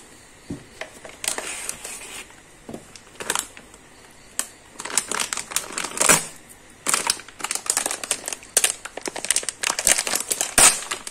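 Clear plastic packing bags crinkling and rustling as they are handled and lifted out of a cardboard box, in irregular crackles that grow busier about halfway through, with a couple of sharper clicks.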